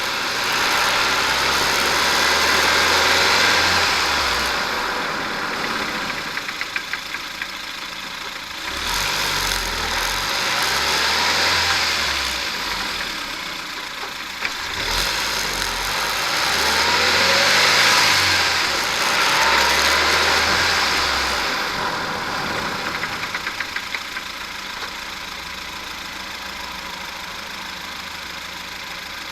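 Ford Fiesta on the move, road noise rising and falling with speed. Twice, as it slows under braking, comes a run of rapid, evenly spaced clicks: the sign of a failed offside driveshaft support bearing.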